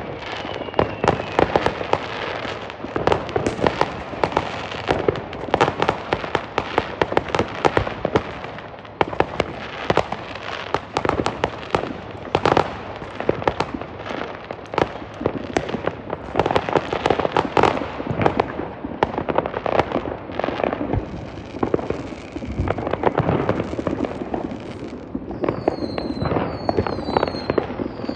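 New Year's fireworks and firecrackers going off in a dense, continuous barrage of bangs and crackles. Near the end several short whistles join in, as from whistling fireworks.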